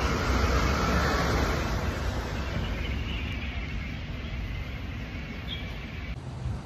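Wind buffeting the microphone: an uneven low rumble with a rushing hiss that eases off, then cuts off near the end.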